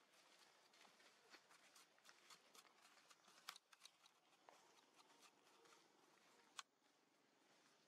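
Near silence: faint scattered clicks and rustling, with two sharper clicks about three and a half and six and a half seconds in.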